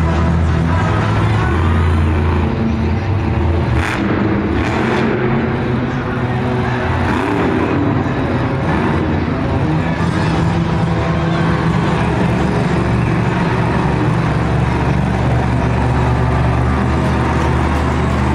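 El Toro Loco monster truck's supercharged V8 running loud and hard during two-wheel skills, its engine note shifting a few times.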